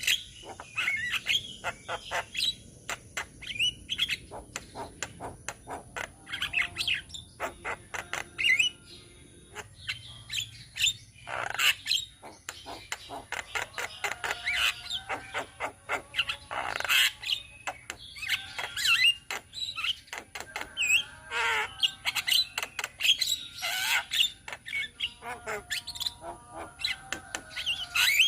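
A group of Javan mynas (jalak kebo) calling together: a dense, overlapping stream of sharp chattering calls, squawks, clicks and short whistles, with a brief lull about a third of the way in.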